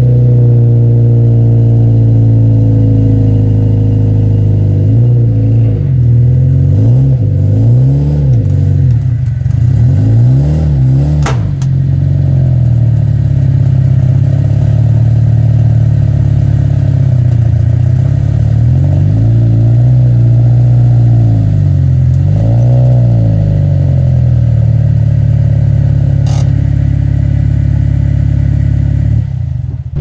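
Subaru WRX STI's turbocharged flat-four running loud through an Invidia aftermarket exhaust with its silencer inserts still fitted, idling between blips of the throttle: several quick revs up and back down about a quarter of the way in, and again a little past the middle. The sound drops away just before the end.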